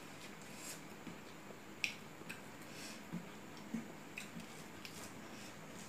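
Faint eating sounds of a meal eaten by hand: scattered soft clicks and smacks from chewing, and from fingers working rice on a steel plate.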